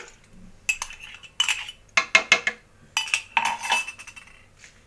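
A steel spoon clinking and scraping against a ceramic coffee mug as the mug is emptied into a plastic jug: about five short clusters of sharp clinks over a few seconds.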